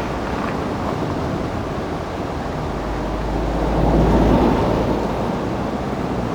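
Rushing river water with wind buffeting the microphone, a steady noisy rumble that swells louder about halfway through.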